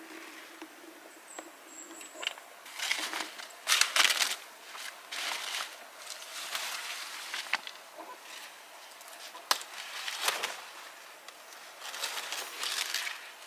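Large broad leaves and undergrowth rustling and crackling as a person pushes through them on foot, in a series of bursts, loudest about four seconds in.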